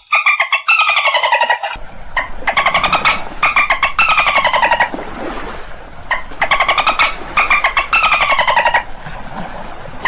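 Dolphin calls: a string of buzzy, pulsed squawks, many sliding down in pitch, with a short break about halfway through. A faint steady hiss sits under them from about two seconds in.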